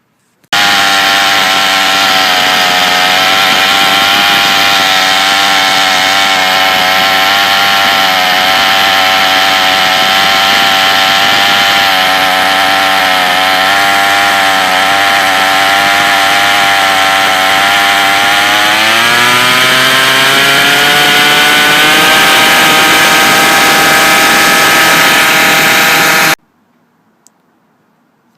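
Troy-Bilt TB32EC two-stroke string trimmer engine running at full throttle while its high-speed carburettor mixture screw is adjusted. About two-thirds through, the engine speed rises and holds higher as the screw is backed out toward maximum power. The sound starts and cuts off abruptly.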